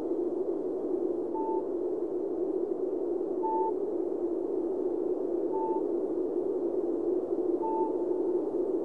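Electronic space-effect sound: a steady whooshing hiss with a short, clear beep repeating about every two seconds.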